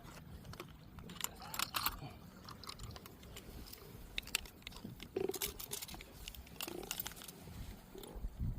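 Faint, scattered clicks, knocks and rustles of handling as fish and a hanging scale are moved about.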